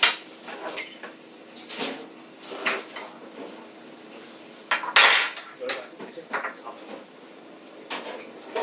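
Cutlery clinking and scraping against ceramic plates as several people eat, in scattered short clicks, with one louder burst of noise about five seconds in.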